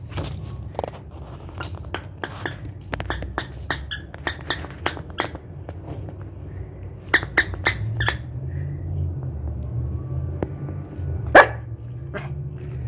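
Small dog chewing and squeezing a squeaky plush toy: a string of short squeaks and clicks from the squeaker and teeth, with one loud squeak near the end. A low steady rumble runs underneath.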